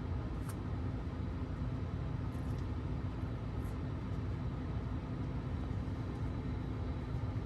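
Steady low rumble with a constant low hum inside a car cabin, with a few faint light clicks.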